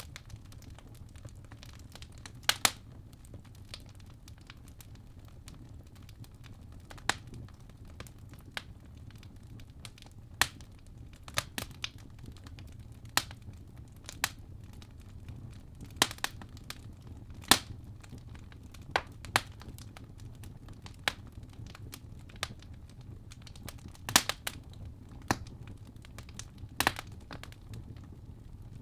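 Wood fire crackling in a fireplace: irregular sharp pops and snaps, roughly one a second and uneven in strength, over a steady low rumble.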